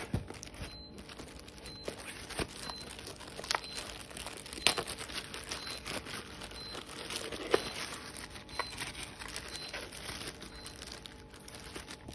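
Plastic packaging crinkling and rustling as it is handled and unwrapped, with many sharp crackles.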